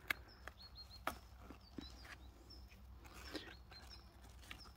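Rustling of squash leaves and dry straw mulch as a hand picks the flowers, with sharp snapping clicks, the loudest right at the start and another about a second in. Faint short, high, falling bird chirps repeat in the background.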